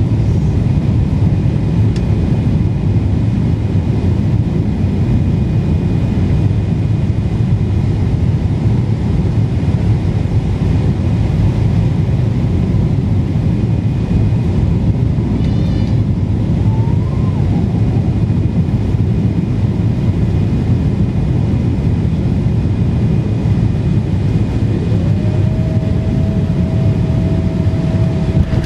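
Cabin noise of a Boeing 777-300ER on final approach, heard at a window seat beside the wing: a steady low rumble of its GE90 turbofan engines and the airflow. Near the end a new steady tone rises in and holds.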